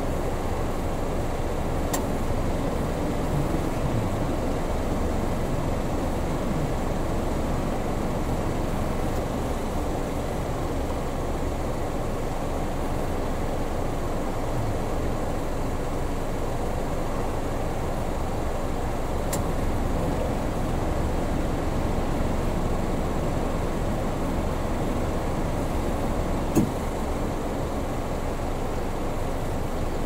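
Steady low rumble of road traffic, with a few sharp clicks, the loudest near the end.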